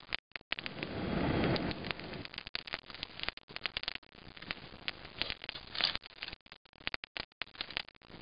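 A person blowing a long breath onto a small kindling fire about a second in, then the pine and fir sticks crackling as they burn, with scattered sharp pops. The fir is a little damp, so the fire is catching slowly.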